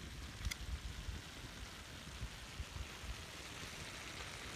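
Chicken pieces frying in oil on a wide iron tawa: a faint, steady sizzle with a sharp crackle about half a second in.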